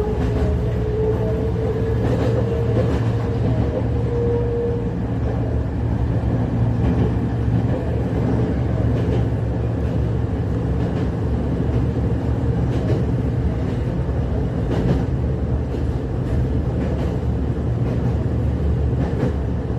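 Running sound inside a Shintetsu 5000 series electric train car. For the first few seconds the Mitsubishi GTO VVVF inverter and traction motors give a whine that rises slowly in pitch as the train picks up speed, then fades. After that there is a steady running rumble with occasional clicks.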